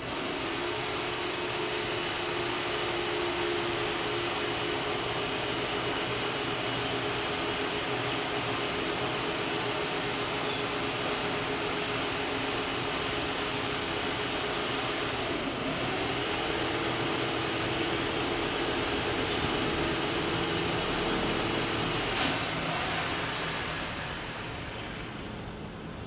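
A steady, machine-like whirring with a constant hum, its pitch dipping briefly and coming back about two-thirds of the way through. A single sharp click near the end, then the noise fades.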